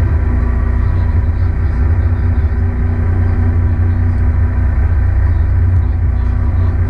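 Fishing boat's engine running steadily: a constant low rumble with a steady hum above it.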